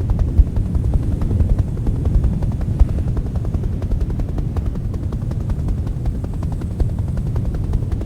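Helicopter passing overhead, its rotor making a rapid, steady beat over a low rumble.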